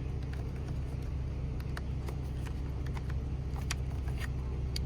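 Infiniti G-series V6 engine idling steadily, with a few sharp clicks over the hum.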